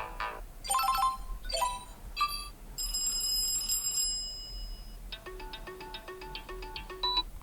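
TCL 306 phone ringtones previewed one after another through the phone's speaker: a few short chime notes, then a bright ringing tone about three seconds in, then from about five seconds in an electronic tune with a note pattern repeating about twice a second.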